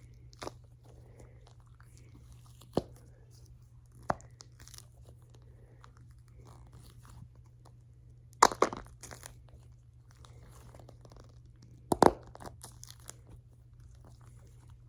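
Handling noise from squeezing a Nee Doh cat squishy stress ball: a few sharp crackles and clicks, the loudest about eight and twelve seconds in, over a steady low hum.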